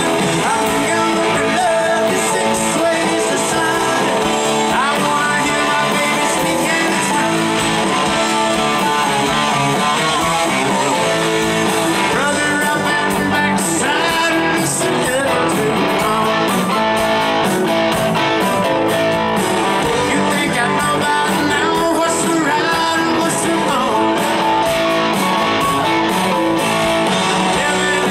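Live Southern rock band playing loud, with electric guitars, drums and keyboard and a man singing lead. The drums' cymbals ride a steady beat from about halfway through.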